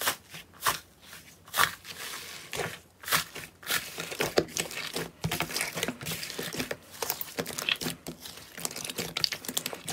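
Hands working a purple slime with a dried, crusted top: irregular crackling and crunching as the crust breaks, with sticky tearing sounds as the slime is pulled and kneaded.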